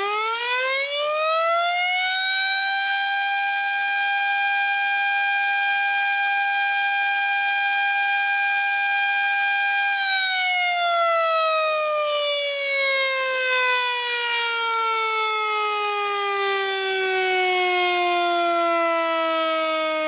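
A loud siren winding up, rising in pitch over the first few seconds, holding one steady high tone until about halfway, then slowly winding down in pitch through the rest.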